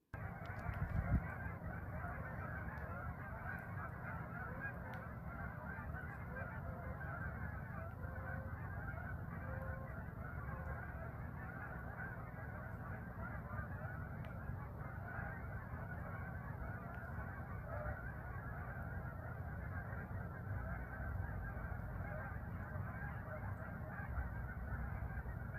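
Many bird calls overlapping in a continuous chorus, with a low rumble underneath.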